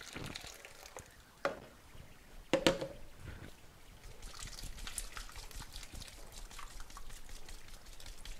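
Thick blended chile sauce poured through a plastic mesh strainer into a pot of broth, dribbling and splashing into the liquid. Two sharp knocks about one and a half and two and a half seconds in, and a steady trickle with small splashes from about four seconds on.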